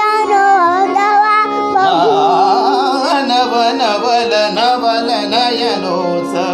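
A voice singing a heavily ornamented Indian classical-style melody, its pitch sliding and wavering, over a steady held drone. A fuller accompaniment joins about two seconds in.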